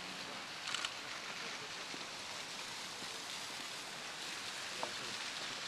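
Garden fountain and pond water running with a steady hiss. A short burst of rapid clicks comes about a second in.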